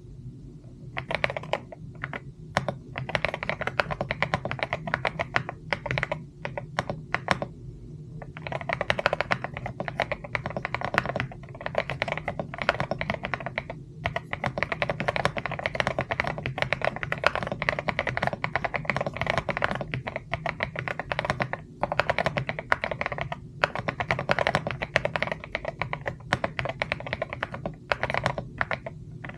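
Mechanical keyboard being typed on in fast, continuous runs of key clicks, broken by a few short pauses.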